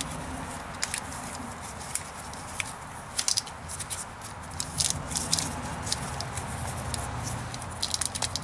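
Irregular crackling and clicking of electrical tape being unwrapped and peeled off a wiring-harness pigtail by gloved hands, thicker about three seconds in and again near the end, over a steady low hum.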